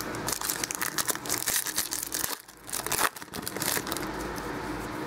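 Foil trading-card pack wrapper being torn open and crinkled by hand: a run of crackles with a brief pause in the middle, easing off after about three and a half seconds.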